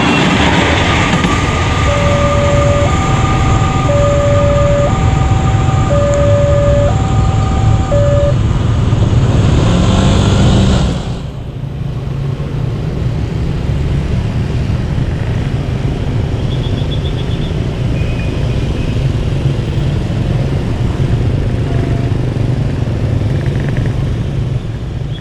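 A railway level-crossing warning siren alternates between a lower and a higher tone, about a second each, over the heavy rumble of a passing train. The siren stops about eight seconds in and the train noise drops away about three seconds later. Steady road traffic noise follows.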